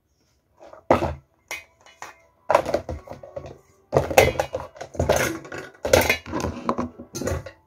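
Dishes and clear plastic food containers knocking and clattering as they are handled and stacked by hand on a table. It starts about a second in, with a few separate knocks, then becomes a busy run of clacks.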